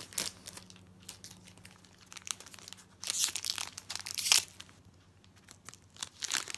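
Foil Pokémon booster pack wrapper crinkling and tearing as it is opened by hand, in a few short rustling bursts, the loudest about three to four seconds in.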